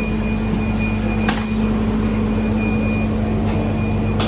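Transit bus idling, heard from inside: a steady low hum with a thin, steady high whine over it, and a few short clicks, the sharpest about a second in.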